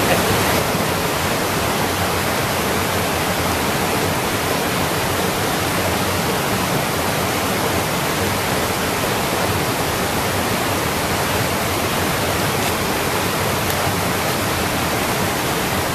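Fast mountain river running over rocks and small rapids: a steady, loud hiss of white water.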